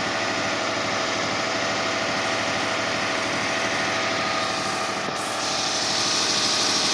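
A 2005 Kia Sedona's 3.5L V6 running at a steady cold high idle with its accessory belts removed, freshly fitted with a new timing belt and water pump; the noise the owner is chasing has not yet set in. A higher hiss comes in about five seconds in.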